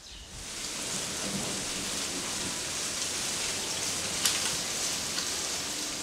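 A steady, even hiss of noise that swells in within the first half second and holds level, with one faint click a little past four seconds in.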